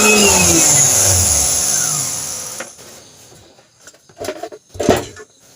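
Blender's brushed motor running flat out, then cut off and winding down with a falling whine that fades out over about two and a half seconds; a few faint knocks of handling follow. The motor's armature commutator is burnt, which makes it spark at the brushes and wear them quickly.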